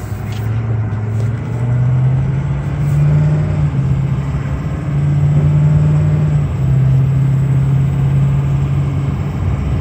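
Pickup truck engine pulling away and accelerating, heard from inside the cab. Its note climbs, then drops back at gear changes about four and six and a half seconds in, before settling into a steady run.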